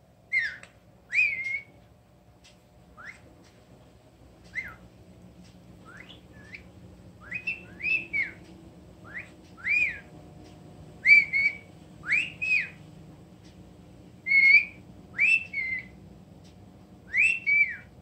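Blue-headed pionus parrot whistling: short, rising-and-falling whistled notes, often in quick pairs, repeated every second or so with brief pauses between.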